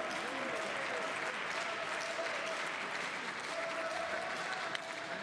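Spectators applauding steadily, with a faint steady tone coming and going behind the clapping.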